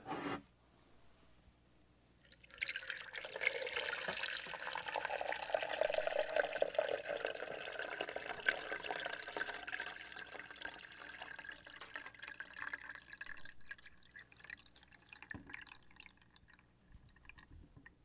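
Water poured into the clear water reservoir of a Brim 8-cup pour-over coffee maker, starting about two and a half seconds in as a steady splashing stream with a faint rising tone. It thins to scattered drips and trickles near the end.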